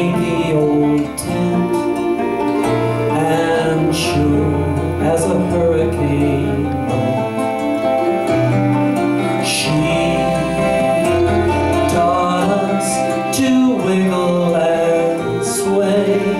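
A small acoustic band playing: a nylon-string guitar with mandolin and bass guitar, the bass stepping through notes under the chords.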